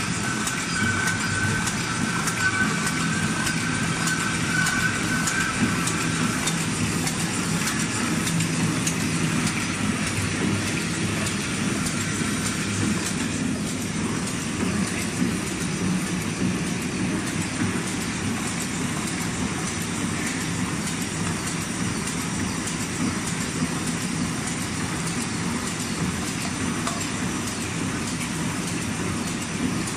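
Automatic horizontal flow-wrapping machine running, wrapping single plastic cups in film: a steady mechanical clatter with fast, even ticking and a low hum. A high steady whine fades out about seven seconds in.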